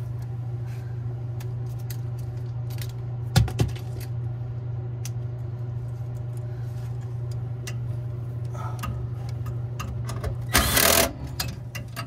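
Scattered small clicks and clinks of a hand driver and screws on the sheet-metal housing of a rooftop unit's inducer draft assembly, with two sharp knocks about three and a half seconds in and a brief loud burst of noise near the end. A steady low hum runs underneath.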